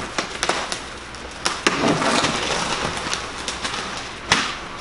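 Scraping and a run of knocks as an old framed plywood wall section is pushed out of a rough window opening, with one sharper knock about four seconds in.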